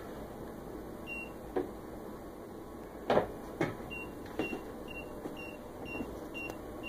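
Short, faint, high-pitched beeps from an A9 weighing indicator during its power-on self-test: one about a second in, then about two a second from around four seconds in. A few sharp knocks, the loudest a pair about three seconds in.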